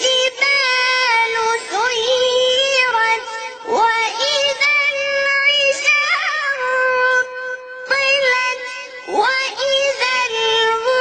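A young child's high voice chanting Quran recitation in a melodic style, with long held notes decorated by slides and turns, in phrases broken by short breaths.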